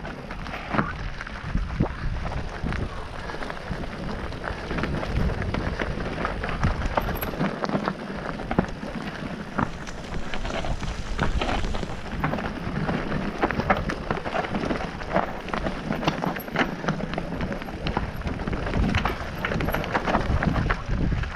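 Mountain bike riding over a rough trail, picked up by an action camera: a constant rumbling hiss of tyre and wind noise, with many sharp clatters and knocks from stones and the bike's rattling parts.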